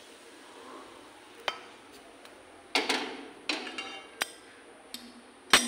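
Metal utensils knocking and scraping against steel cookware as fried green chillies and garlic in oil are scraped out of the pan into a steel mixing bowl: about half a dozen sharp clinks, the loudest near the end.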